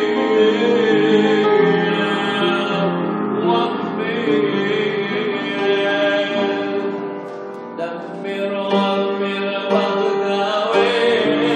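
A man singing a hymn solo into a microphone, accompanied by a keyboard; the music dips briefly about two-thirds of the way through, then carries on.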